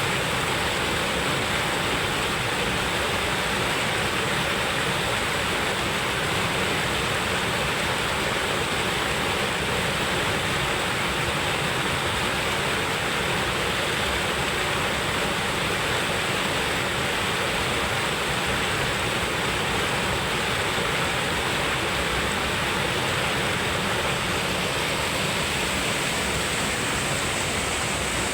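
Waterfall on a forest river: the steady, unbroken rush of falling water.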